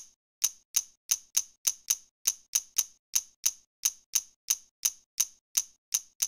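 Typing sound effect: a run of sharp single keystroke clicks, about three a second and slightly uneven, with dead silence between them.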